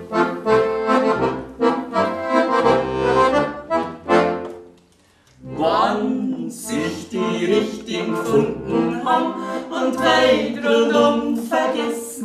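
Alpengold piano accordion playing the instrumental introduction to a song, melody over bass-button chords. It breaks off briefly about five seconds in, then resumes.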